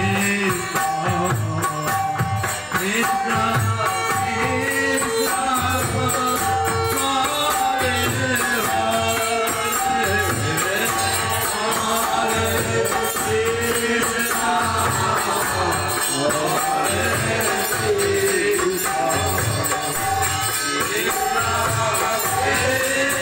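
Devotional kirtan: a harmonium sustains chords under group singing, with hand clapping and a steady low beat about twice a second.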